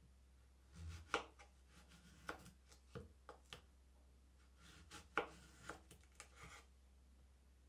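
Large kitchen knife slicing lengthwise through a raw zucchini on a wooden cutting board: several short, crisp cuts, each ending in a sharp tap of the blade on the board.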